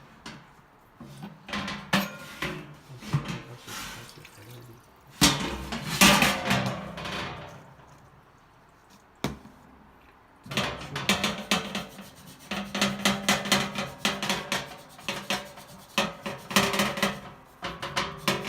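A stainless steel surface scrubbed with scouring powder and a scourer to lift grease stains: rasping back-and-forth strokes with knocks, a pause near the middle, then fast steady scrubbing through the last third.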